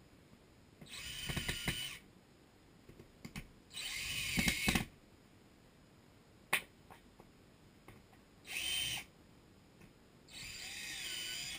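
Power drill driving screws in four short runs of about a second each, fastening small wooden blocks to a plywood board. A single sharp click comes between the second and third runs.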